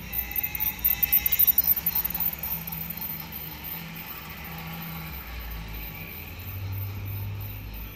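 Toy train set's wagons rattling and clicking over plastic track, the clicks dense and loudest in the first two seconds, then settling into a steadier rattle.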